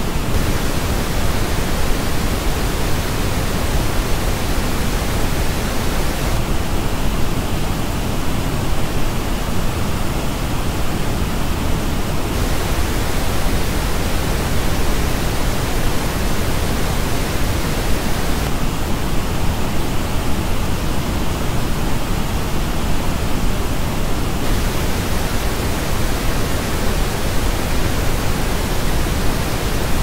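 Pink noise, a steady full-range hiss, played in alternating stretches of about six seconds. The original reference pink noise alternates with the same noise reproduced by the Warwick Acoustics Aperio electrostatic headphones, which sounds duller, with less treble. The switches come about 6, 12, 18 and 24 seconds in.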